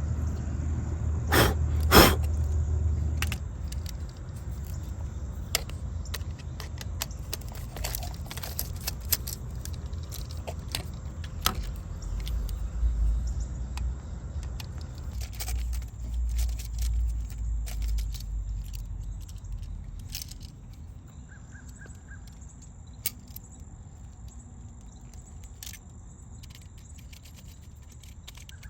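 Scattered small clicks and light metallic clatter of hand tools and an electrical outlet being handled while the outlet is swapped out, over a low rumble that comes and goes.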